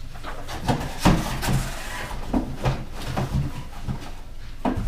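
Handling clatter: a run of irregular knocks and rattles as parts are picked up and set down.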